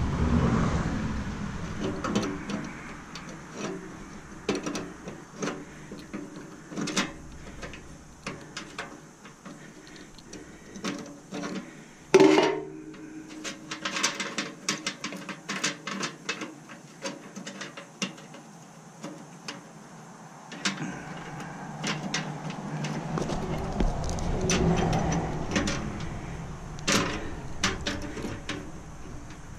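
Hand tools working on a stainless steel appliance casing: scattered metal clicks and knocks, with one sharp clank about twelve seconds in that rings briefly. A low rumble swells and fades near the end.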